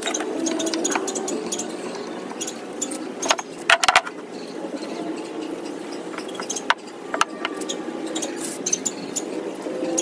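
Wooden pieces and hand tools knocking and clicking on a wooden workbench as a small frame is fitted together and clamped, with a short burst of several sharper knocks about three and a half seconds in.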